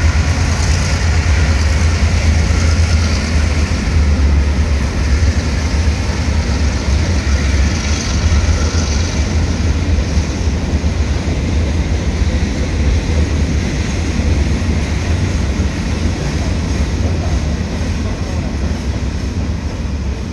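Freight train pulling away: the locomotive's low rumble and the wagons' wheels rolling on the rails, steady and slowly growing quieter.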